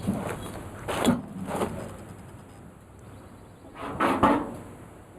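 A few heavy knocks on wood: one about a second in, a lighter one just after, and a louder double knock near the end.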